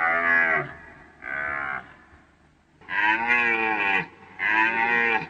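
Fallow deer calling: four drawn-out calls in a row with short gaps between them. The third call is the longest and the second is the faintest.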